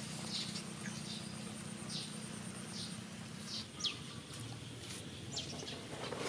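Small birds giving short, high chirps now and then over a steady low background hum.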